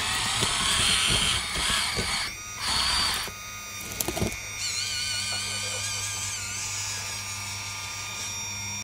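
Hydraulic RC excavator's electric pump and valves whining and hissing as the boom and bucket move, over a steady motor hum, with a few sharp knocks around four seconds in as the bucket works among the rocks. From about five seconds in, the whine wavers up and down in pitch.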